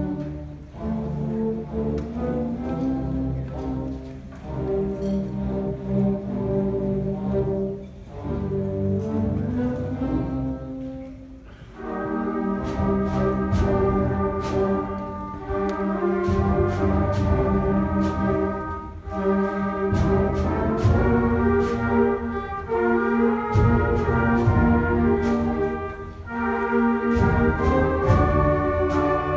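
Large student concert band of brass and woodwinds playing held chords in phrases. About twelve seconds in the music grows louder and fuller, with percussion strikes marking the beat.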